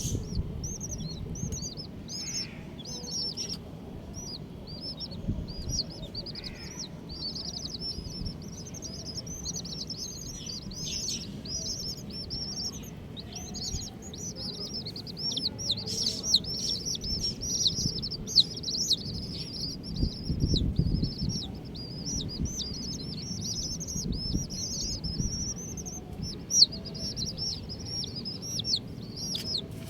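A group of baby chicks peeping: many short, high chirps overlapping without pause, getting busier in the second half. A low rumble and a few short knocks sit underneath.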